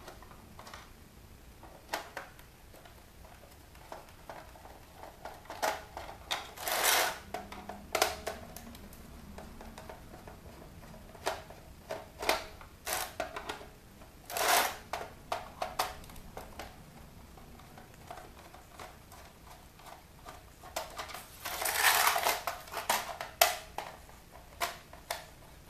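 Scattered clicks and short scraping rattles of screws being undone from the plastic back panel of a toy keyboard, with a few longer scraping bursts about a quarter of the way in, just past halfway and near the end.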